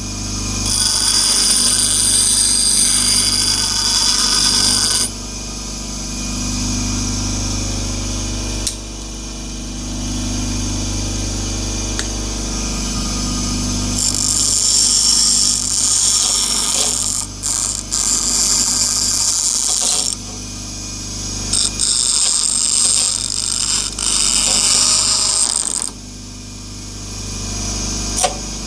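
Bench grinder running with a steady motor hum, a flattened steel L bracket pressed against the wheel in three long spells of high grinding hiss to round off its sharp corners.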